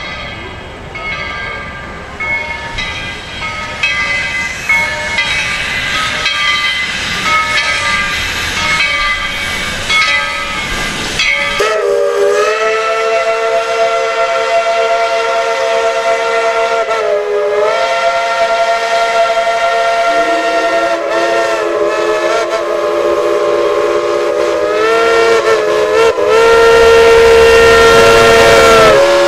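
Steam locomotive chime whistle blowing long held blasts, with a second, lower whistle joining partway through and the sound growing louder near the end. Before the whistling, about ten seconds of repeated short ringing strikes, typical of a locomotive bell, over a steady hiss.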